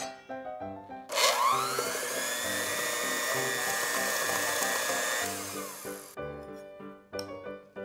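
Electric hand mixer beating butter and powdered sugar: it spins up with a rising whine about a second in, runs steadily, then winds down with a falling whine after about five seconds. Background music plays throughout.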